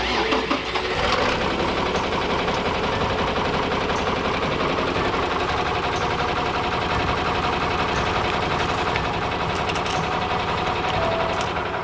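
Old John Deere farm tractor's engine running steadily with a fast, even chugging as the tractor creeps forward under load.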